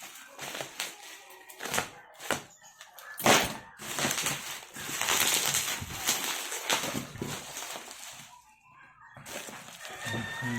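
A cardboard box being cut open with a utility cutter: a run of taps and clicks, then a long scraping stretch from about three to eight seconds in as the blade runs through the packing tape and cardboard.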